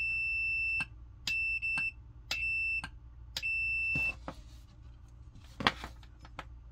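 A digital multimeter's continuity beeper gives a steady high beep each time the probes bridge the closed contacts of an Instant Pot switch: four beeps in the first four seconds, each under a second. The switch is conducting, so its contacts seem to be working. After that come handling clicks from the switch and probes, the loudest a sharp click near the sixth second.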